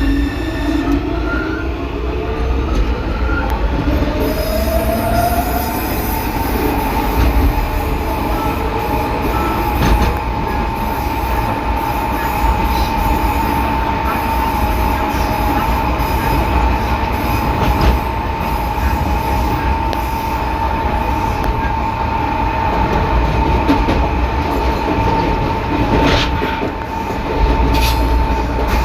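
São Paulo Metro Line 3 train's traction motor and inverter whining, rising in pitch over the first six seconds as the train gathers speed and then holding a steady tone, over a low rumble. Along with it comes a growl from the reduction gearbox, which is probably short of lubrication.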